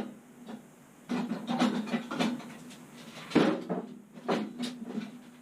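Clunks, rattles and scraping as a part is shoved back into a microwave oven's metal casing, with the sharpest knock about three and a half seconds in.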